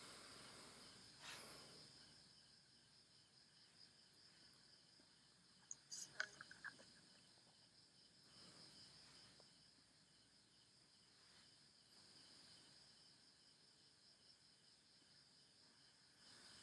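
Near silence: faint steady chirring of insects in the background, with a short cluster of soft clicks about six seconds in.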